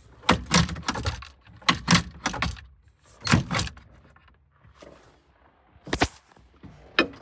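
A string of sharp clunks and knocks in a tractor cab as the cab door is shut and things are handled. The knocks come thick in the first few seconds, then two more near the end.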